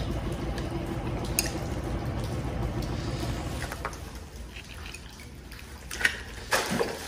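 Water trickling and dripping, steady for the first half and quieter after; a couple of sharp knocks near the end.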